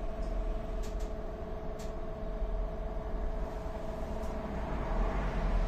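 Trolleybus heard from inside the cab: a steady two-tone electrical hum over a low rumble as it creeps forward, with a few light clicks in the first two seconds and the noise swelling slightly near the end.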